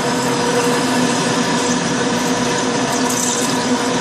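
Metal lathe running steadily at low speed while a parting tool cuts into a steel bar under flood coolant: a constant mechanical hum with a few steady tones over an even hiss.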